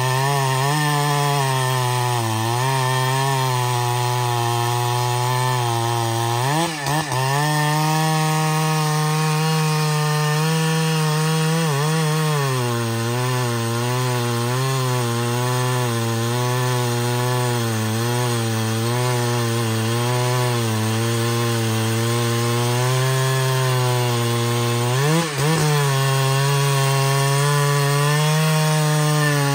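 Large Husqvarna two-stroke chainsaw cutting through a thick trembesi trunk under load, its engine note wavering steadily. Twice, about seven seconds in and again near the end, the revs dip sharply and swing back up.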